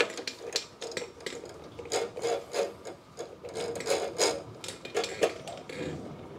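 A spin-on oil filter being screwed by hand onto the mount of a Kawasaki FJ180V mower engine: irregular rubbing and scraping strokes with light clicks as the hand turns the canister.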